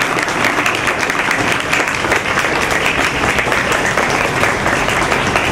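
A crowd of students clapping steadily in sustained applause.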